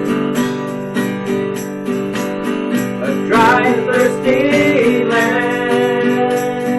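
Instrumental break in a gospel song: acoustic guitar strummed in a steady rhythm, with a gliding melody line over it from about halfway through.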